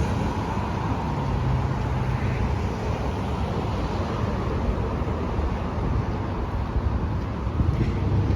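A car being driven: steady road and engine noise.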